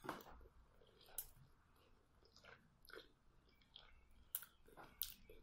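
Faint close-up chewing of a pork zongzi, sticky glutinous rice and meat, with soft wet mouth sounds and a handful of short sharp clicks.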